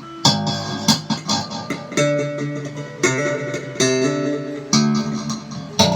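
Electric bass guitar played through an amplifier: a run of sharply plucked notes with a bright, clicky attack, played while the treble control is being tried out.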